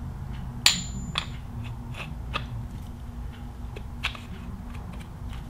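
Light metal clicks and taps as the inner hub and outer ring of an ATI Super Damper harmonic balancer are worked together by hand. The sharpest click comes under a second in, with a few fainter taps after it, over a steady low hum.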